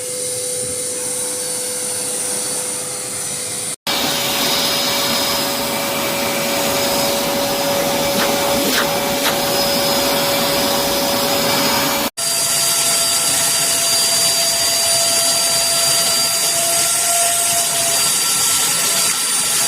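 Ladderman stainless-steel wet and dry vacuum cleaner running: a steady rush of air with a motor whine. It breaks off abruptly twice, and the whine is a little higher after each break.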